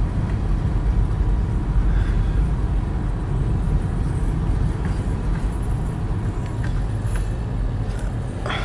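Freight cars of a Canadian National mixed freight train rolling over a grade crossing, heard from inside a car: a steady low rumble of steel wheels on the rails.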